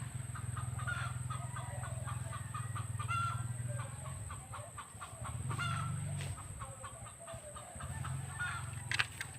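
Chickens clucking, many short calls overlapping, over a steady low hum that fades out twice midway and returns.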